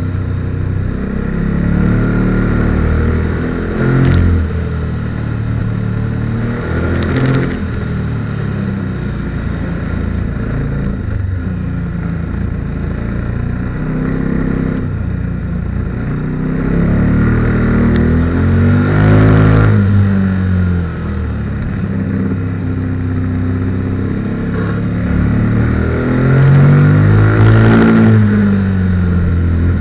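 KTM 1290 Super Duke R's V-twin engine under way, heard from a bike-mounted camera, revving up and easing off again and again, loudest about two-thirds of the way through and near the end, over a steady rush of wind noise.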